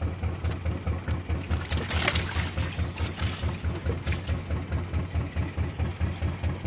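Fishing boat's engine idling with a fast, even low thumping beat.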